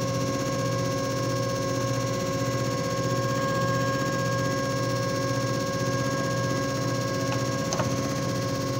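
JFJ Easy Pro disc repair machine running through its cycle: a steady motor hum with a constant whine over it and a slow, even pulse underneath. Two faint ticks come near the end.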